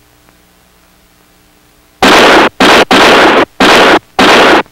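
Five loud gunshots fired in quick succession, about two a second, starting about two seconds in.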